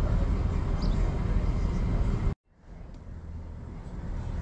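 Outdoor street ambience with a steady low rumble. It cuts out abruptly a little over two seconds in, then fades back up.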